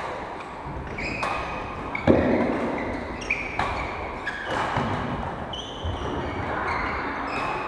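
Badminton play: rackets striking shuttlecocks with sharp hits every second or so, sports shoes squeaking in short high chirps on the wooden court, and footfalls thudding, the loudest thud about two seconds in.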